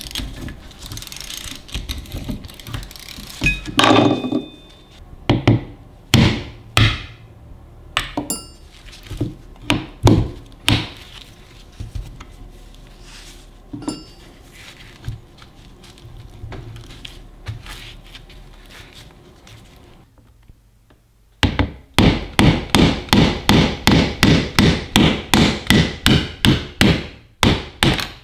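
Metal knocks and clanks from the antique Metabo hand-cranked grinder being handled: scattered single knocks at first, then, after a quieter pause, a fast even run of clacks, about three a second, for the last six seconds or so.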